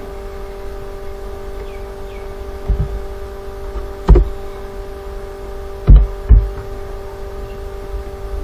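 A steady hum made of several fixed pitches, broken by four low thumps or knocks: one about three seconds in, a louder click-like knock about four seconds in, and two close together around six seconds.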